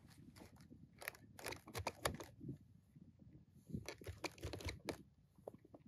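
Faint crisp crunches and clicks of boots shifting in cold, packed snow, in two irregular clusters, about a second in and again near four seconds in.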